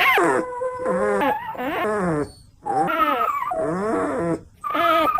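A dog whining and yowling in a run of long, wavering, pitched calls, broken by short pauses about halfway and near the end.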